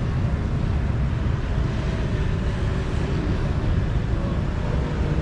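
Steady low rumble of a moving vehicle, with a fluttering low end.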